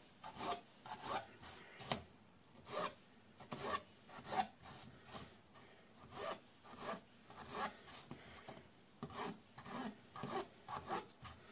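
Kitchen knife cutting raw potato slices into sticks for fries on a plastic cutting board: a series of short, crisp cuts, each ending in a light tap of the blade on the board, roughly two a second and unevenly spaced.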